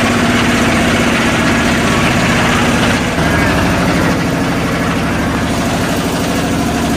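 Engine of a small wooden motor boat running steadily with a fast, even throb, under a hiss of wind and water; the tone shifts slightly about three seconds in.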